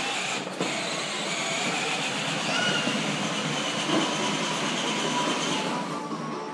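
Battery-powered ride-on toy car driving across a hard floor: its electric motor and gearbox whirring and its plastic wheels rumbling steadily, falling away near the end.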